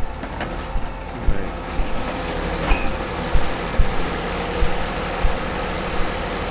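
Log lorry's engine running steadily, with a faint steady whine and irregular low thumps.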